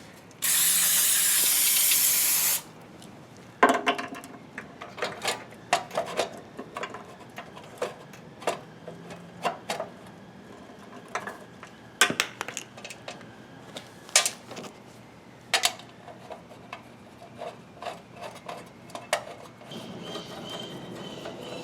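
A loud spray hiss lasting about two seconds, followed by scattered clicks and clanks of tools and metal parts being handled on a small lawn mower.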